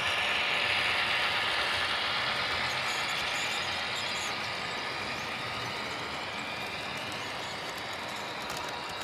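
Model train running past on the track: the locomotive's small motor and gears whirring, with wheels rolling on the rails. It is loudest as the locomotive passes, about a second in, then eases off slowly as the container wagons follow.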